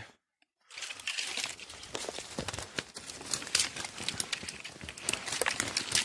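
Dry fallen leaves and forest litter crunching and rustling as they are disturbed, with many small crackles, starting after a brief silence.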